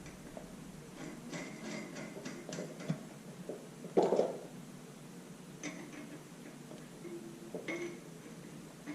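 Light metal clinks and taps of hand tools and nuts on an engine head, with one louder knock about four seconds in.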